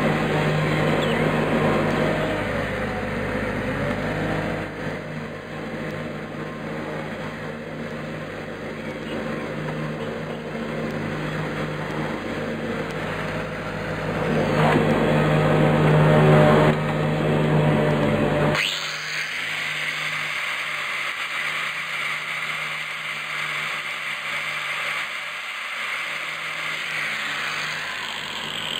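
An engine running steadily with a strong low hum, swelling briefly about fifteen seconds in. About two-thirds through, the low hum cuts off abruptly, leaving a thinner, higher machine hiss.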